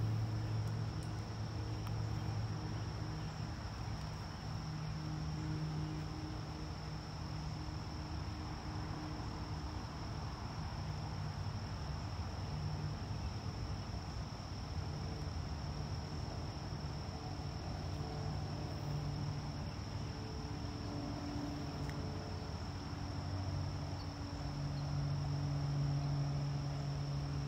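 Crickets trilling in one steady, unbroken high-pitched note, over a low droning hum.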